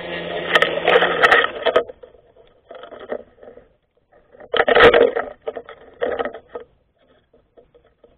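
24V brushless electric grass cutter running and cutting grass, with sharp clicks of stems or debris being struck. Just under two seconds in, the steady run stops. It gives way to three short bursts of cutting noise separated by pauses, the loudest about five seconds in.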